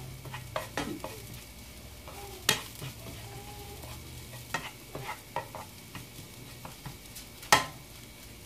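Minced garlic frying gently in a little vegetable oil in a nonstick frying pan, faintly sizzling, while kitchen tongs stir it, scraping and tapping against the pan. Two sharper knocks of the tongs on the pan stand out, about two and a half seconds in and near the end.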